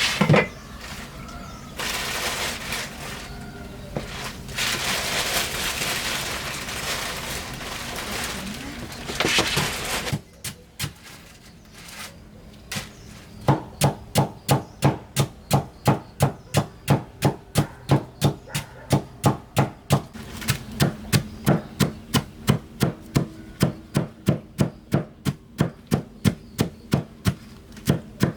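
A rough, steady rustling noise for several seconds, then after a pause a few scattered taps. From about halfway a knife chops steadily on a cutting board, about two to three strokes a second.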